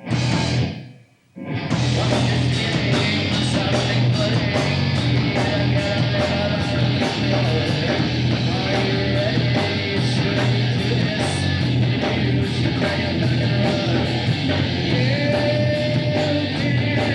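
Heavy metal band playing: distorted guitar, heavy bass and drums in a steady beat. It kicks in about a second and a half in, after a brief drop almost to silence.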